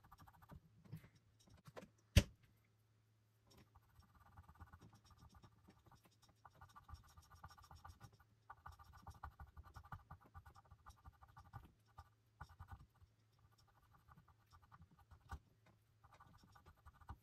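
Faint, scratchy scrubbing of an alcohol-dampened cotton swab on the clear plastic number board of an HO scale model locomotive, coming in several short stretches, stripping off the printed numbers. One sharp click about two seconds in.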